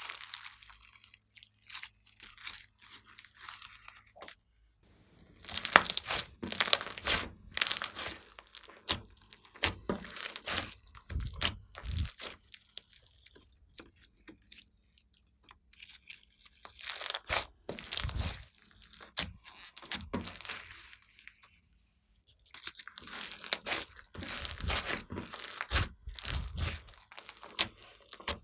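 Clear slime being kneaded and squeezed by hand, crackling and popping in bursts of rapid clicks, with short quieter pauses between handfuls.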